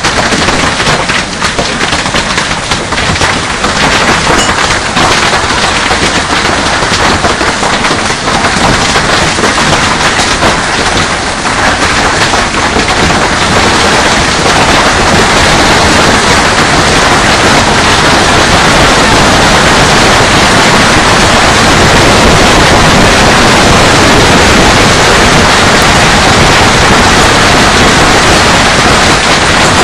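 Golf-ball-sized hail pounding down, a dense clatter of hard impacts that thickens into a steady, loud roar from about halfway through.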